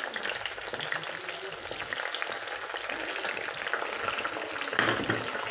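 Prawn heads sizzling and crackling as they fry in hot oil in a pan, with the sizzle growing louder about five seconds in.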